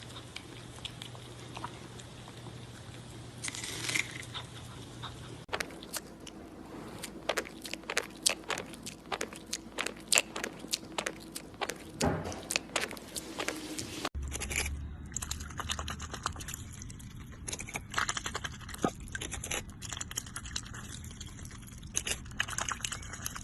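Crunching and chewing: a dense run of sharp crunches through the middle stretch, with scattered clicks and scrapes on either side.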